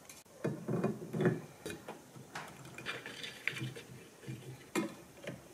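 Hard plastic propeller of a Watersnake trolling motor being handled and slid onto the motor's shaft: a series of light, irregular clicks and knocks, several close together in the first second and a half and two more near the end.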